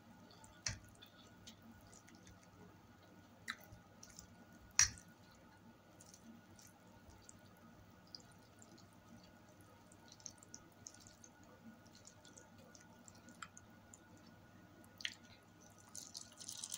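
Close-up eating of spaghetti with a fork: wet mouth clicks and fork taps scattered through, the sharpest about five seconds in, and a short slurp of noodles near the end.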